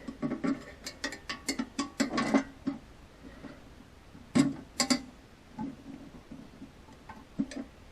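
Sharp metallic clinks, knocks and rattles from the bent steel door and bolts of a small safe, damaged by .44 Magnum hits, being worked open by hand. There is a quick run of clinks in the first two and a half seconds, a louder pair of knocks about four and a half seconds in, and a few scattered ticks after that.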